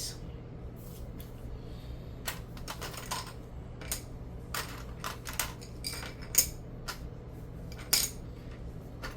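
Plastic Lego pieces clicking and clattering as they are handled, about a dozen short sharp clicks at uneven intervals, with one loud click just past the middle and another near the end.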